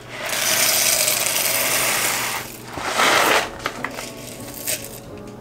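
Crinkly rustling as packets are rummaged through inside a ceramic canister. A second, louder rustle comes about three seconds in, and a few light clicks follow near the end.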